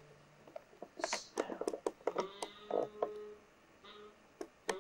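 Irregular quick clicks and taps, bunched together about a second in and with a sharper one near the end, over a faint steady hum.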